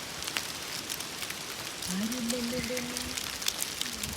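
Rain falling steadily, with individual drops pattering close by. About halfway through, a person's voice holds one drawn-out note for a second or so.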